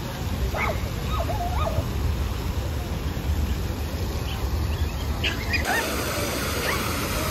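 Fountain jets splashing into a stone pool, a steady watery hiss with a low rumble of wind on the microphone. A few short high calls sound over it, about half a second in, again a second later, and after about five seconds.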